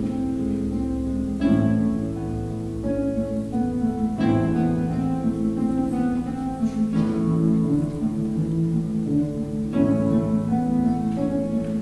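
An ensemble of classical guitars playing together, with strong plucked chords struck about every three seconds and ringing notes between them.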